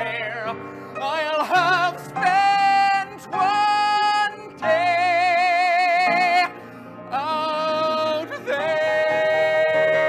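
Male musical-theatre tenor singing with piano accompaniment: several sustained phrases with wide vibrato, then a long held high note from about three-quarters of the way in.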